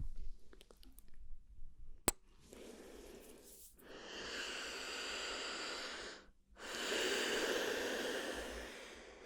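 Close-miked ASMR mouth sounds: two sharp mouth clicks, then two long breathy exhales of about three to four seconds each, with a short pause between them.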